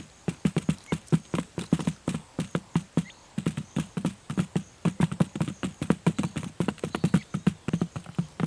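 Rapid, irregular run of short dull knocks, several a second, with brief pauses.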